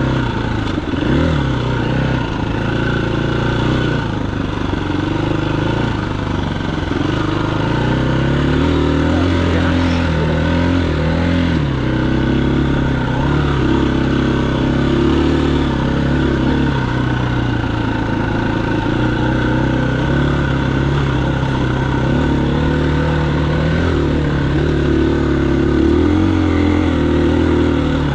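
A vehicle engine running steadily while under way. Its pitch shifts up and down a little with changes in speed, notably about a second in and again around ten seconds in.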